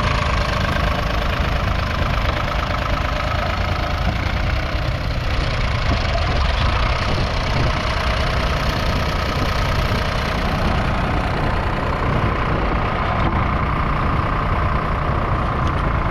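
A 1959 Nuffield Universal Three tractor's 2.6-litre three-cylinder diesel engine running steadily.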